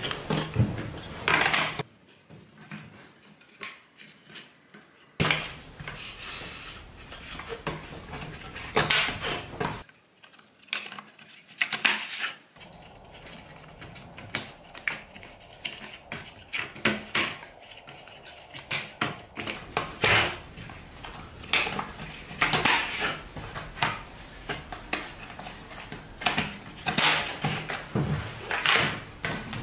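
Thin notched wooden strips clicking and knocking against each other and the wooden workbench as they are laid out and slotted together at their notches into a kumiko lattice. The taps come irregularly, in clusters, with a couple of quieter pauses.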